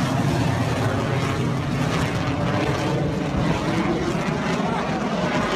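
Jet aircraft flying overhead: a steady engine rumble.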